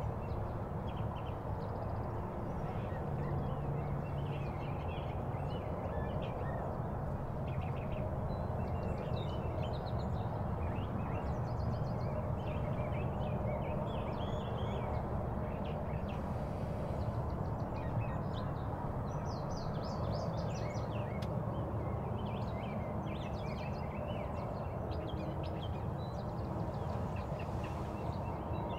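Small songbirds chirping and singing in short, scattered calls over a steady low rush of outdoor background noise.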